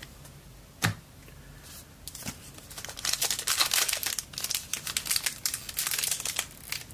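A trading-card pack's wrapper being crinkled and torn open, a dense run of crackling that starts about three seconds in, after a single sharp knock about a second in. The packet is tough to tear open.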